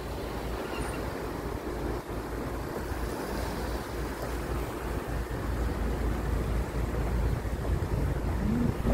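Wind blowing across the phone's microphone over the wash of small waves on a rocky shore, a steady rumbling noise that grows louder in the second half.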